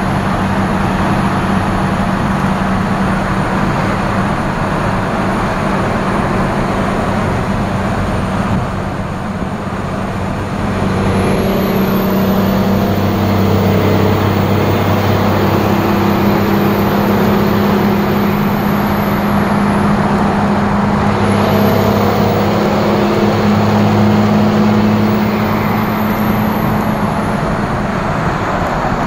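2nd-gen 24-valve Cummins inline-six diesel pulling a heavy load, heard from the cab: a steady low drone that eases briefly about a third of the way in, then grows louder. Over it the turbocharger whistles high, rising, holding and falling away twice as it spools up under throttle.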